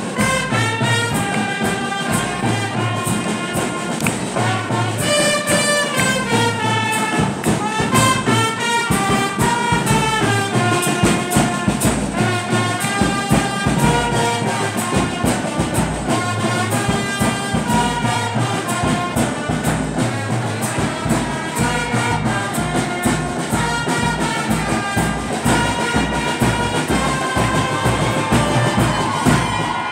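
A congregation singing a hymn together, a melody of held notes over a steady beat.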